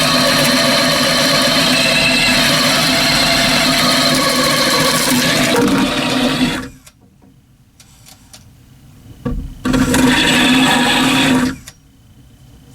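Cordless power drill running steadily as it bores a pilot hole through a new wooden block. It stops about seven seconds in, gives a short blip a couple of seconds later, then runs again for about two seconds and stops.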